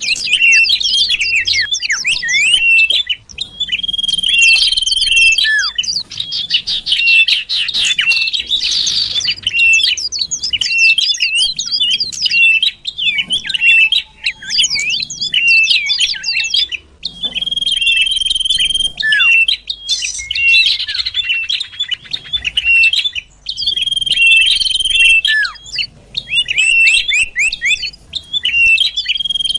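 Cipoh (common iora) calls of the 'sirtu' type used as a bird-catching lure: a dense run of quick sweeping chirps and chatters. Long whistled notes recur every few seconds through the run.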